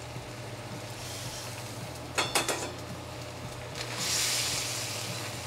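Noodles going into a hot carbon steel wok of crawfish and sauce: a few sharp clinks about two seconds in, then a hissing sizzle from about four seconds as the noodles are stirred in with chopsticks.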